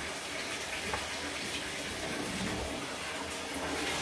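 Bathtub filling from a running tap: a steady rush of water, with a light knock about a second in.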